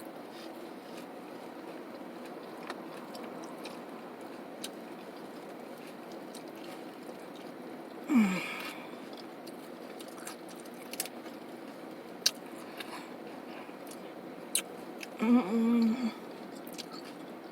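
Nachos being chewed, with scattered sharp crunches of tortilla chips, over the steady hum of a car's air conditioning. A short vocal sound comes about eight seconds in, and an appreciative 'mm-mm' near the end.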